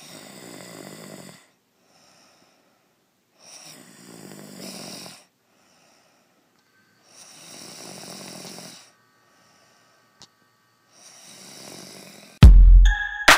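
A woman snoring loudly in deep sleep: four long, rasping snores, each a second and a half or so, about three and a half seconds apart. Near the end, loud electronic music with heavy bass cuts in suddenly and drowns everything out.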